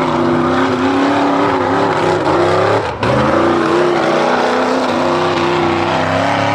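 Mud-bog truck's engine running hard at high revs under load, with a brief dip about three seconds in before it picks up again.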